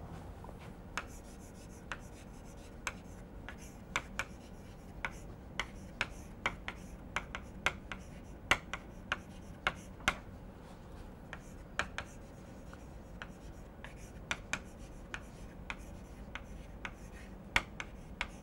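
Chalk writing on a chalkboard: a string of sharp, irregular taps and light scratches as the letters are formed, about two taps a second.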